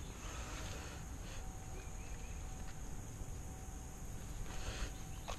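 Quiet outdoor ambience: a steady low rumble with a faint, thin, steady high tone over it, and no distinct event.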